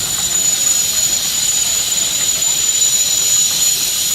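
Steam hissing steadily from a 1925 Case 50 hp steam traction engine: a loud, even hiss with a thin, high whine running through it.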